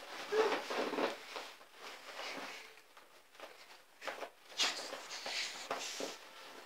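Irregular scuffling and rustling as a toddler wrestles and rolls on an inflatable snowman on carpet, in short uneven bursts.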